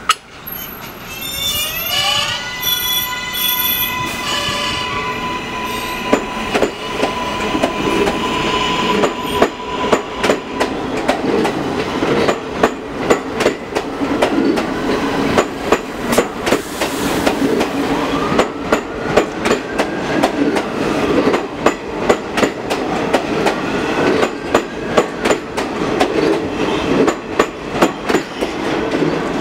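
R143 subway train pulling out: a sharp click at the very start, then its electric propulsion whine glides up in pitch and holds a steady tone for several seconds. Wheels then click rhythmically over rail joints, faster and faster as the cars pass close by, with more rising whines from the motors as it gathers speed.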